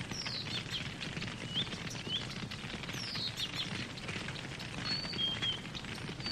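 Campfire crackling, with many small, irregular pops over a steady low noise from the burning. Songbirds call over it: falling whistled sweeps near the start and again about three seconds in, short rising chirps, and short, level whistled notes near the end.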